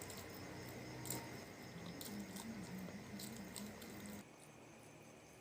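Quiet eating sounds: scattered faint clicks and smacks of chewing, with a low wavering hum in the middle.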